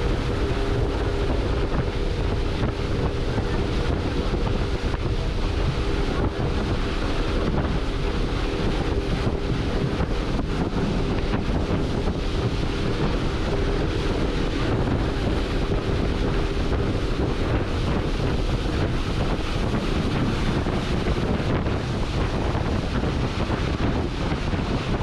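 Heavy wind buffeting the microphone over a boat's steady engine hum and water splashing on the bumpy crossing. The engine's hum fades away about halfway through.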